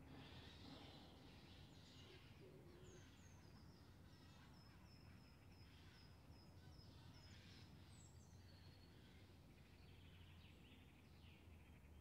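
Empty park ambience: faint birds chirping, with a run of short high repeated notes in the middle, over a low steady rumble.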